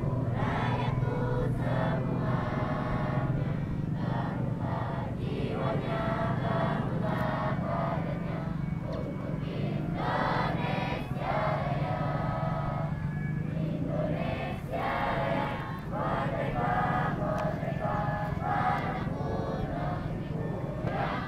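A large group of young scouts singing a song together in unison, without instruments, during a flag raising.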